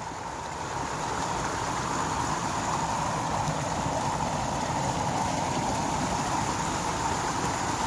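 Steady rushing of a small woodland stream, growing a little louder over the first second and then holding even.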